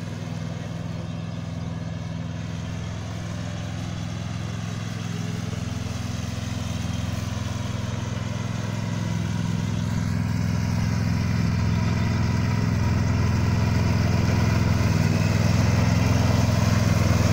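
Husqvarna TC 139 T lawn tractor's engine running steadily at mowing speed, with the cutting deck working the grass. It grows louder through the second half as the tractor drives back toward the listener.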